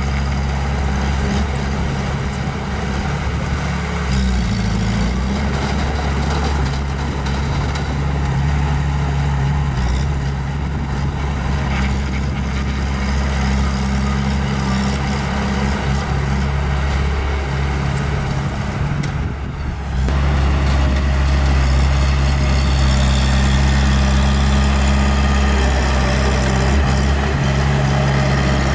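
Small bulldozer's diesel engine running steadily. It dips briefly about two-thirds of the way in, then runs a little louder.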